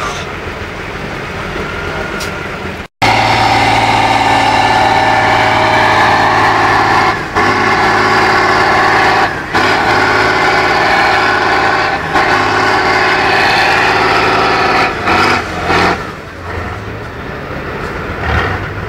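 Tatra 813 trial truck's diesel engine working hard on a steep off-road section. After a short break in the sound about three seconds in, it runs loud and steady at high revs, with three brief dips, then eases off a few seconds before the end.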